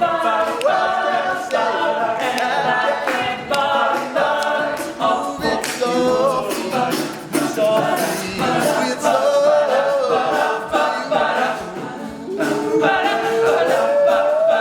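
Male a cappella group singing in close harmony, a lead voice gliding up and down above the backing voices, with no instruments.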